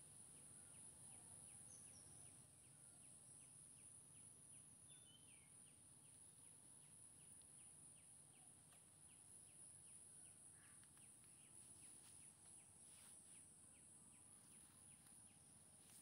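Near silence: faint room tone with a steady high hiss and faint, evenly spaced ticks, about two or three a second.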